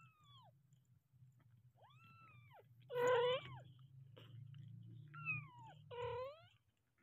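Very young kittens mewing, about five short cries that rise and fall in pitch, the loudest about three seconds in. A low steady rumble runs underneath and stops near the end.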